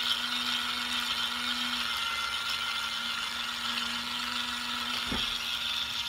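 Mini beauty-sponge washing machine running on two AA batteries, its small motor spinning soapy water to mix in the cleanser, with a steady hum and hiss. A brief low bump about five seconds in.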